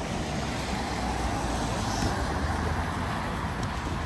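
Street traffic on a rain-wet road: passing cars give a steady wash of tyre noise on wet pavement over a low engine rumble.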